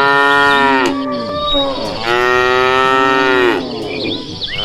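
Cow mooing in long calls held at one pitch. One call ends about a second in, a second runs through the middle, and a third begins near the end.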